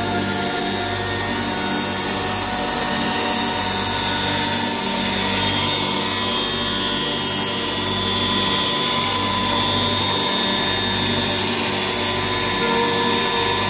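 Radio-controlled scale Sikorsky MH-60S Seahawk helicopter flying in hover: steady rotor and drive noise with a high, even whine.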